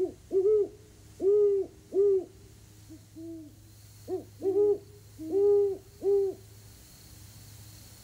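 Great horned owl hooting: a rhythmic series of about nine deep, soft hoots, some short and some drawn out, stopping about six seconds in.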